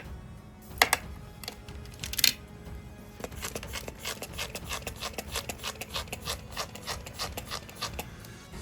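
Two sharp clicks or taps on a small metal watch part, then quick repeated rubbing or scraping strokes, about three or four a second, over background music.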